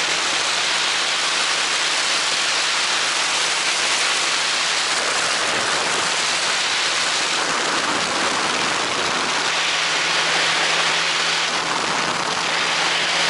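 Quicksilver ultralight in steady cruising flight: a loud, even rush of wind over the open cockpit, with the steady drone of its engine and propeller underneath.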